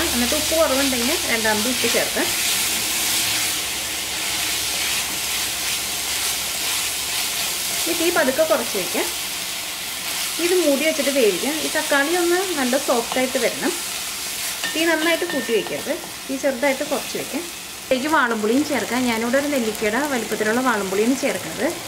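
Coconut masala sizzling in hot oil in an earthenware pot while a wooden spatula stirs and scrapes through it. A wavering pitched sound comes and goes through the second half.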